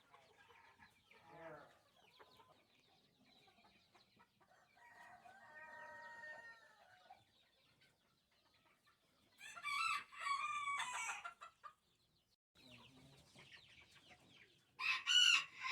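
Poultry flock: chickens clucking, with roosters crowing. There is a fainter call about five seconds in, a loud crow lasting about two seconds at around nine seconds, and another loud crow near the end.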